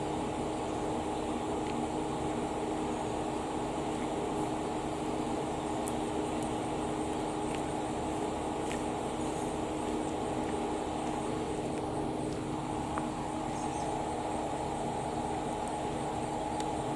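Steady mechanical hum holding several fixed tones at an even level, with no rise or fall in pitch.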